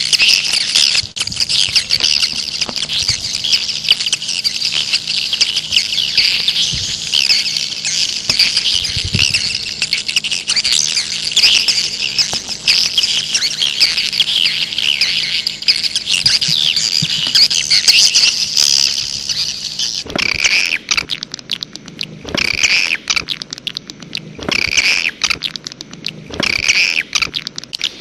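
Swiftlet calls played back as a lure for wild swiftlets: dense, rapid twittering chirps. About twenty seconds in, the twittering breaks into shorter bursts with gaps between them.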